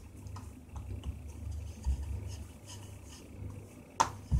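Soft rubbing and handling as a ball of wheat-flour dough is pressed flat by hand on a wooden cutting board, over a low steady hum. About four seconds in, a sharp knock and a thud as a thin wooden rolling pin is brought down onto the board.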